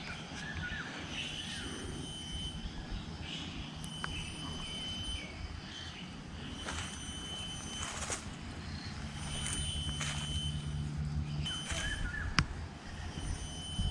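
Forest ambience: birds calling with short high notes and small falling whistles, over the hiker's footsteps on a dry, leaf-littered trail. A sharp click stands out about twelve seconds in.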